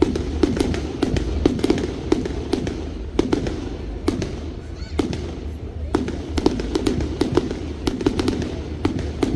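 Fireworks display: a rapid, irregular run of sharp bangs and crackles, several a second, over a steady low rumble.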